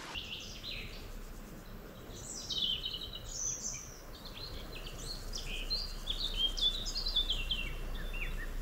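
Songbirds singing: a continuous run of quick, high chirps, many falling in pitch.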